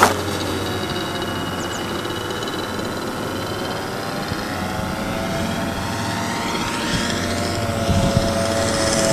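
Engine of a radio-controlled P-51 Mustang model flying at a distance: a steady, even drone that grows a little louder and higher near the end as the plane comes back in. A sharp click right at the start.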